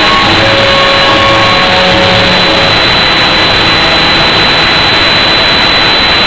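Argentine tango music from loudspeakers, recorded so loud that it is overloaded into a steady roar of distorted noise, with a few held notes just showing through. A steady high whine runs underneath.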